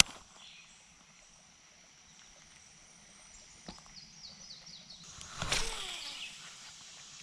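A bird sings a quick run of about six short falling notes about three and a half seconds in, over a faint steady high tone. About five and a half seconds in comes a brief, louder rush.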